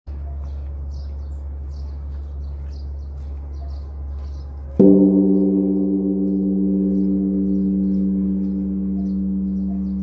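Large Korean Buddhist temple bell, bronze and struck from outside with a wooden log, sounding once about halfway through, then ringing on in a long, slowly fading tone with a slow throb; a deep hum is already sounding before the strike. This is the temple's evening bell-ringing.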